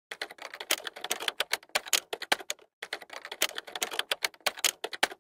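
Typing sound effect: rapid keystroke clicks in two runs with a short pause near the middle, stopping suddenly at the end.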